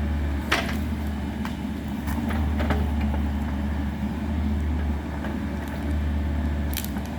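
A vehicle engine running steadily with a low drone, with a few sharp clicks or knocks over it.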